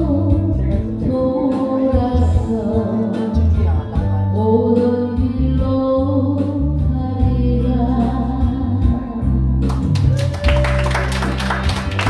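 A Korean trot song: a plaintive voice singing a melody over a band accompaniment with a steady bass line. About ten seconds in, the accompaniment grows brighter, with sharp percussion strokes.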